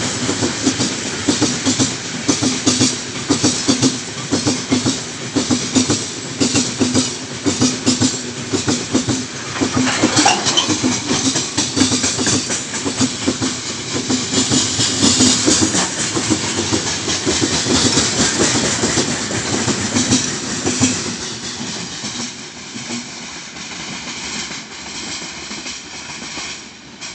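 Heavy freight train of open-top gondola wagons rolling past at speed, its wheels clacking rhythmically over the rail joints. The sound fades over the last few seconds as the end of the train moves away.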